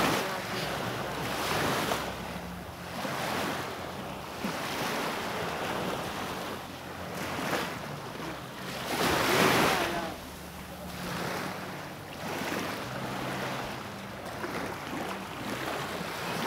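Small waves washing onto a sandy beach, the surf swelling and easing every second or two, loudest about nine seconds in, with wind on the microphone.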